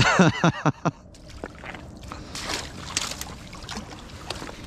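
A man's excited, laughing whoop in the first second, then a run of short, irregular splashes and knocks in shallow water as a freshly landed lake trout is handled at the shore.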